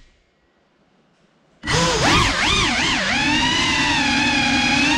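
GEPRC Cinelog 35 cinewhoop's brushless motors silent for about a second and a half, then spinning up sharply into a loud whine as the drone lifts off the floor. The pitch swoops up and down with the throttle, then holds steadier.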